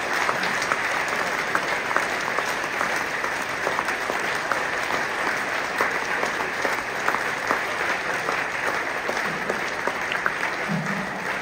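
Large audience applauding steadily, a dense patter of many hands clapping that tapers slightly near the end.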